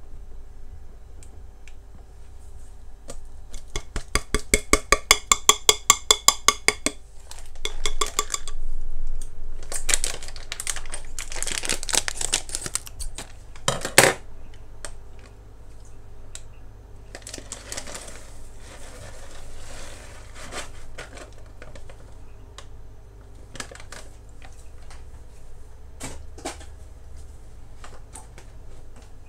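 Kitchen utensils clinking and scraping against dishware. There is a quick, even run of ringing taps for about three seconds, then scraping and one sharp knock about halfway through, then softer scraping and a few clicks.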